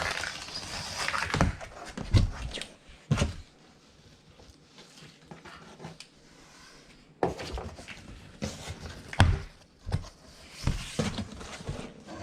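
Cardboard shipping box being opened and handled: rustling and scraping of cardboard with several sharp thumps and knocks, and a quieter stretch in the middle.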